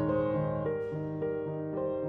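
Background music: a slow piano melody of single notes over held lower notes.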